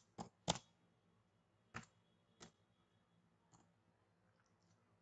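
A few separate computer keyboard keystrokes, irregularly spaced, as numbers are typed in: two close together just after the start, then single presses about two and two and a half seconds in and a faint one past the middle.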